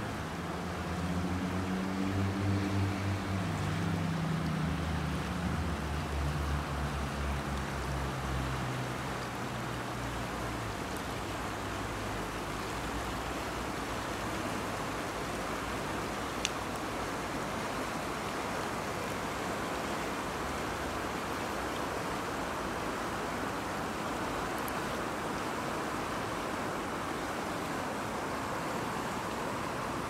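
Steady rush of a fast, shallow river flowing over stones. Under it for the first ten seconds or so, a low engine drone from a passing vehicle steps down in pitch and fades away. A single faint click comes about halfway through.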